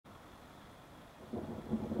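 Thunder from a storm: after a faint steady hiss, a low rumble begins about a second and a quarter in and grows louder.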